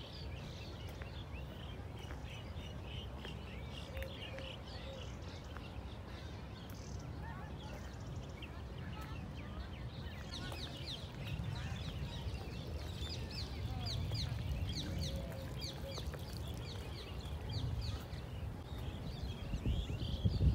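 Small birds chirping and twittering in the park trees, with quick repeated high chirps that grow busier about halfway through. Under them runs a steady low rumble of wind and handling on the phone microphone.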